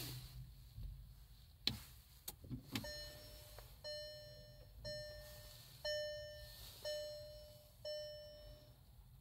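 A few sharp clicks, then the Volkswagen e-Golf's warning chime dings six times, about once a second, each ding fading away. It rings as the car is switched on with the start button.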